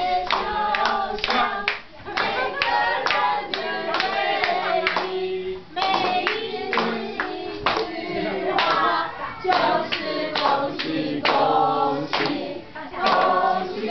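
A group of people singing together while clapping along in a steady beat.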